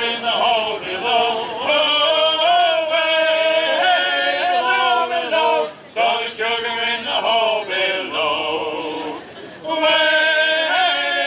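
Background music: a group of men singing a song in chorus.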